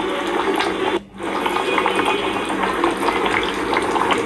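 Beef curry with whole garlic simmering in a pot on low heat, the thick gravy bubbling with many small pops over a steady hiss. The sound briefly drops out about a second in.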